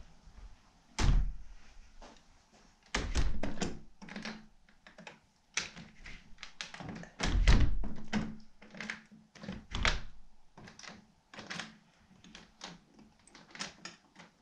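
A glass-paned door and its lock being worked by hand: many sharp clicks and rattles, with heavier thunks about a second in, around three seconds, at about seven to eight seconds and at ten seconds. It is a lock being checked that does not hold the door shut.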